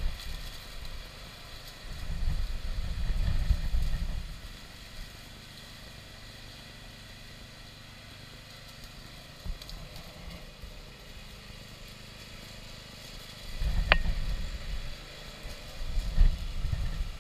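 Gusts of wind buffeting the microphone as irregular low rumbles, twice, with a quieter steady spell between them and a single sharp click about fourteen seconds in.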